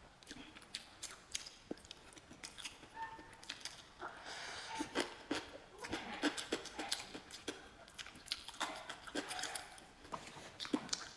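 Close-up chewing: a person eating a chili-coated dish with many short, sharp wet mouth clicks and smacks.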